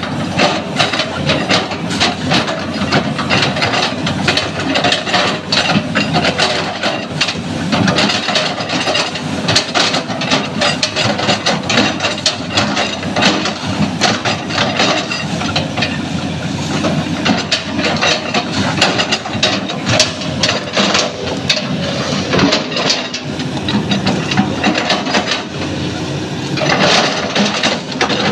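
SANY hydraulic excavator's diesel engine running under load while its bucket chops again and again into felled oil palm trunks, with crunching and cracking of the wood throughout.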